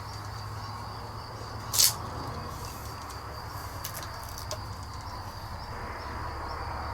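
Faint room tone with a steady low hum and a thin, steady high tone, broken by one brief scrape about two seconds in and a small tick later.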